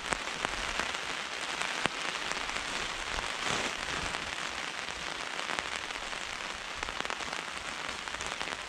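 Heavy rain falling steadily, with many sharp ticks of drops striking close by.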